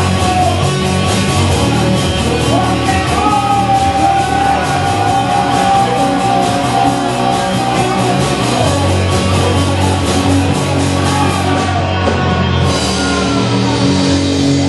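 Live rock band playing loud with electric guitar, bass and drums, the sound filling a crowded, reverberant room.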